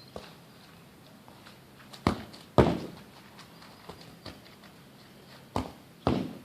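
Two pairs of sharp knocks or thuds, each pair about half a second apart, the second pair coming some three seconds after the first.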